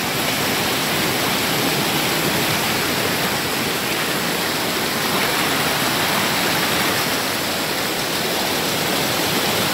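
Shallow mountain creek rushing over rocks and spilling down a small cascade, a steady, even rush of water.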